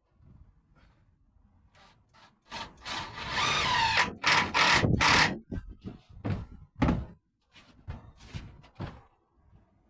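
A van shelving rack being shifted and set in place against the van's panel: a clattering, scraping run of thuds about two and a half seconds in, then several separate knocks.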